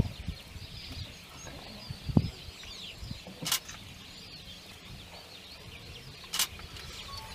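Wild birds chirping and calling throughout, many short quick notes, with two short sharp clicks about three and a half and six and a half seconds in.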